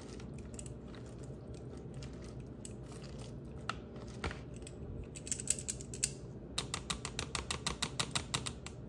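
Salad being tossed with silicone-tipped metal tongs in a bowl: scattered light clicks and rustling of lettuce, then a quick run of clicks, about eight a second, over the last two seconds.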